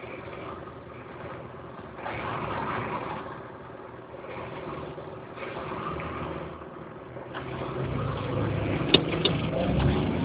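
Car engine and road traffic noise heard from inside a car. It grows louder and deeper over the last couple of seconds, with two sharp clicks about nine seconds in.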